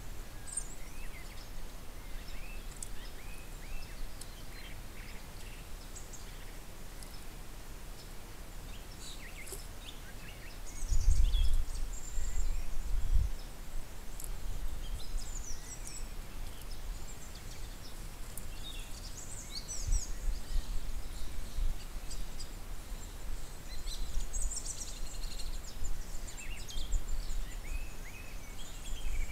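Small songbirds calling and chirping in short, high notes, scattered throughout. A low rumble comes in gusts and is loudest about a third of the way in.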